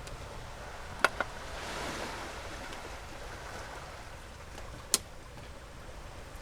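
Sea waves washing onto a beach, with wind noise; a swell of surf about a second and a half in. Two sharp clicks about a second in and another near five seconds stand out above it.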